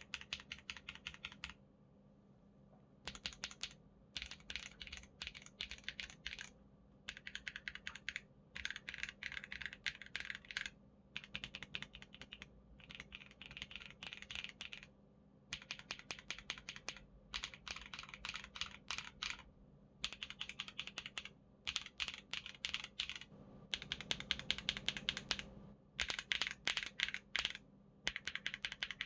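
Monsgeek M1 mechanical keyboard with linear switches, polycarbonate plate and Cherry-profile dye-sublimated keycaps, typed on in short bursts of rapid keystrokes with brief pauses between. Each burst is a different set of keys fitted with a different linear switch, such as Gateron Pureberry, MMD Cream V3, MMD Mint Blue, MMD Princess, Lumia Matcha V3 and MMD Emerald Yellow, for a switch sound comparison.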